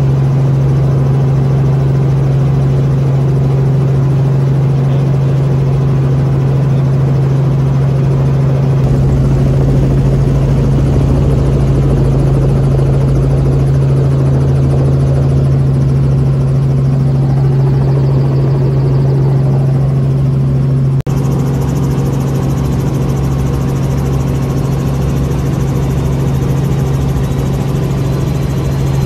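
Robinson R44 helicopter in flight: its rotor and six-cylinder Lycoming piston engine make a steady, unbroken drone with a strong low hum. There is a very brief dropout about two-thirds of the way through, after which the same drone runs on with a little more hiss.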